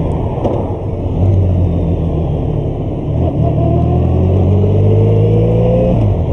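Honda VFR1200F's V4 engine running as the motorcycle rides along, heard from a camera on the bike. About three and a half seconds in its pitch rises steadily as the bike accelerates, then drops sharply near the end.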